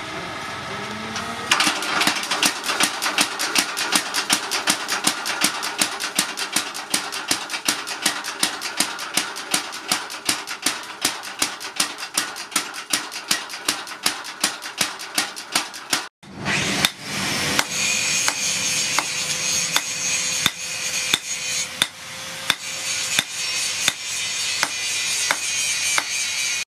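Hammer blows on red-hot spring steel. First come rapid, regular strikes, about four a second, as the strip is worked over a steel post. After a break they give way to slower, heavier sledgehammer blows on the blade on an anvil.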